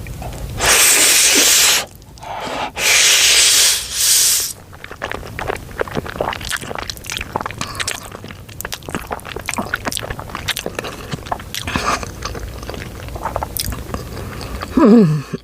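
Mouth sounds of a big bite of cheesy ramen noodles: three loud slurps in the first few seconds, then steady chewing with many small wet mouth clicks.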